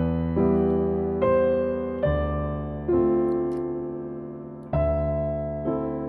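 Background music: slow solo piano, a new note or chord struck every second or two and left to fade away.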